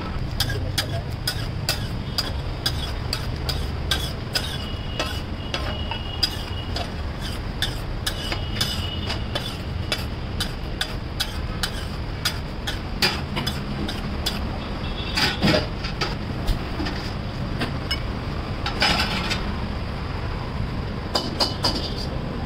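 Steel bhaji masher repeatedly knocking and scraping against a large iron tawa as the pav bhaji is mashed, giving irregular metallic clicks and knocks. A steady low rumble runs underneath.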